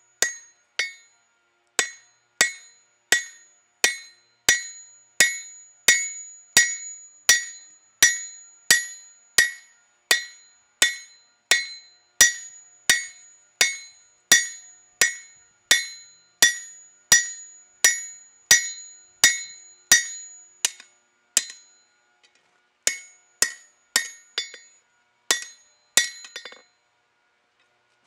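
Hand hammer striking hot leaf-spring steel on an anvil at a steady pace of about three blows every two seconds. Each blow has a bright metallic ring: the shaping blows forging a shamshir blade. The blows pause briefly about three-quarters of the way through, resume, then end in a few light taps.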